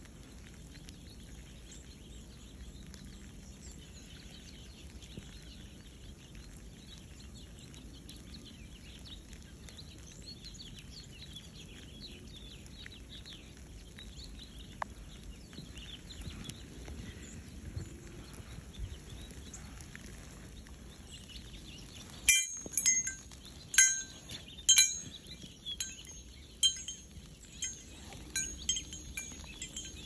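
Faint, scattered chirping of a flock of small birds, then from about two-thirds of the way in a tubular wind chime rings: a run of loud struck notes, each ringing on, at irregular intervals.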